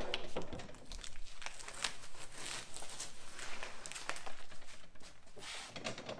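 Protective paper film being peeled off a freshly trimmed white Formica laminate panel, crinkling and tearing in an irregular run of crackles.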